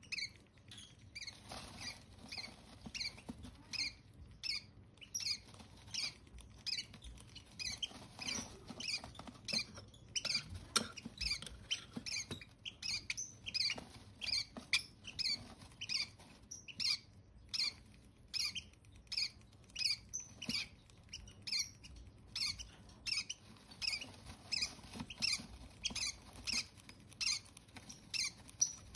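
Hand-fed parrot chick giving short, high, squeaky food-begging peeps, about two a second, as it takes baby formula from a spoon.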